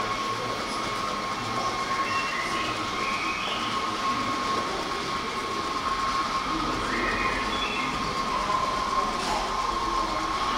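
Model railway train running on the layout, its small electric motor giving a steady whine over the rumble of wheels on the track.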